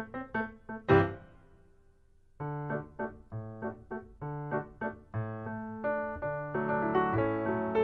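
Solo piano accompaniment. A loud chord about a second in rings away into a brief pause. A new passage then begins, with quick repeated notes over sustained low chords, and grows gradually fuller.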